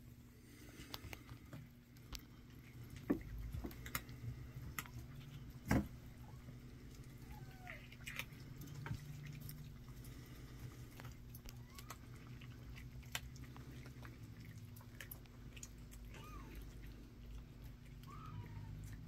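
Kittens mewing faintly a few times, short thin high calls among scattered light clicks and taps from their play and from cats eating dry food.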